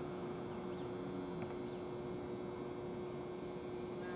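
Steady electrical hum on one pitch over faint, even outdoor background noise.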